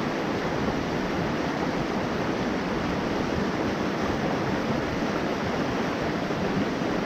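Headwater mountain stream rushing over rocks: a steady, even wash of flowing water.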